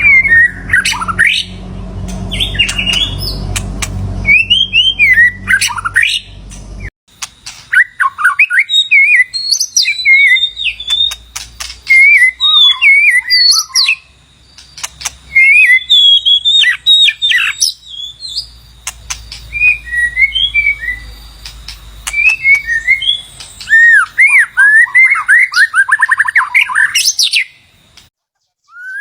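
White-rumped shama singing: bouts of rich, varied whistled phrases with quick up-and-down glides and sharp clicks between notes, broken by short pauses. A low steady hum under the song cuts off suddenly about seven seconds in.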